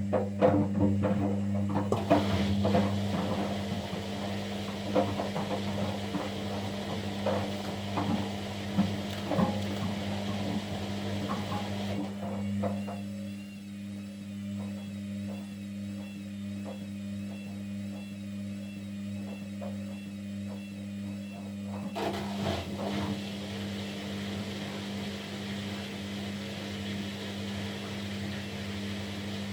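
Kunft washing machine running: a steady motor hum, with knocks and clatter from the turning drum through the first dozen seconds. From about twelve seconds in to about twenty-two, a wavering high whine rises and falls over the hum.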